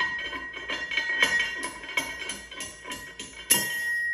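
Steel bar striking repeatedly down inside the steel casing of a Rock Hog 6.5 down-the-hole hammer, driving a snap ring into its groove. Each strike makes the tube ring, about three or four a second. A harder final strike comes near the end and leaves the casing ringing as the ring locks in place.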